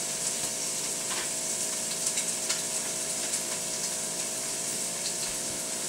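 Thin-sliced steak frying in a skillet: a steady sizzle with scattered small crackles, over a faint steady hum.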